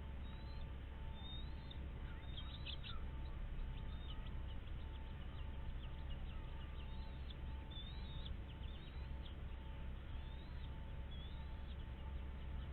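Birds chirping: many short, high calls and quick rising-and-falling whistles in scattered clusters, over a steady low rumble and a faint steady hum.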